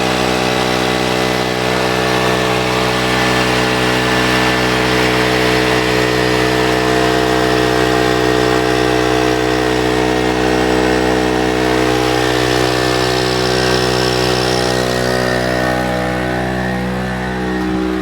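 Small two-stroke engine of an 800-watt Storm Cat portable generator running steadily under the load of a pellet stove. Its sound softens and shifts slightly lower in the last couple of seconds.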